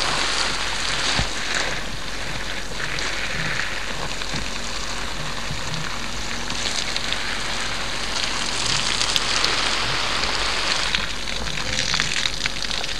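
Water running from a garden hose and splashing: a steady hiss that swells and fades.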